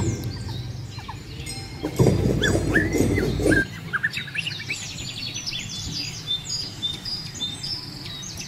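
Many small birds chirping and twittering in quick, high notes, thickest in the second half. Under them, a low rumble cuts off suddenly about three and a half seconds in.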